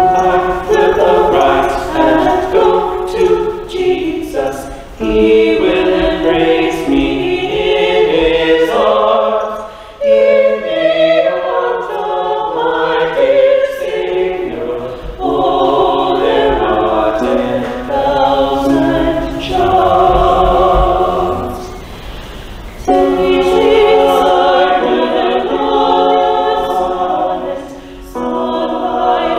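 Small mixed choir of men's and women's voices singing a hymn, in phrases of a few seconds with short breaks for breath between them.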